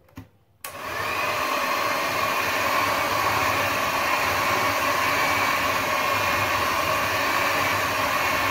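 Electric hand mixer switched on about half a second in, then running steadily at speed, its twin beaters whipping thick marshmallow mixture in a glass bowl.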